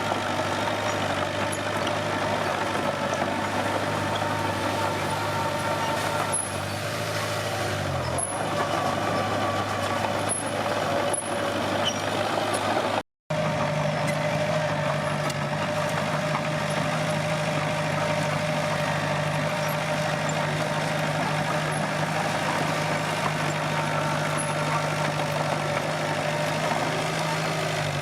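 Komatsu D21P bulldozer's diesel engine running steadily, with a few knocks partway through. The sound cuts out for an instant about halfway, then the engine carries on at a steady note.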